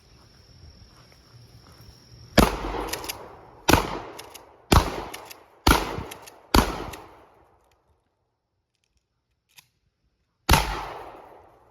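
Six shotgun shots: five fired about a second apart, then a pause of about four seconds and one more. Each has a sharp crack and a tail that dies away over about a second.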